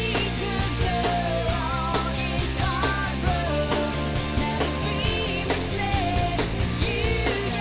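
Rock music in a grunge/punk-rock style, a full band playing continuously with a wavering melody line on top.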